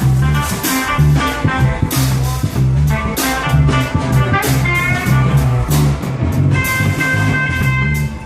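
Live blues-rock band playing: electric guitar over a drum kit and bass guitar, with regular drum hits. The guitar holds sustained notes near the end.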